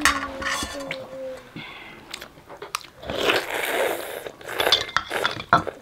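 Close-up eating sounds: noodles being slurped and chewed, with sharp clicks of forks on a metal plate. The loudest stretch, a long slurp, comes in the middle.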